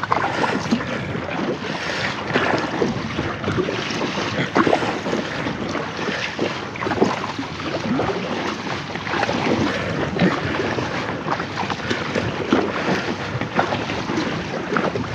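Kayak paddle blades dipping and splashing in wind-rippled lake water, with water slapping against the inflatable kayak's hull. Wind buffets the microphone throughout.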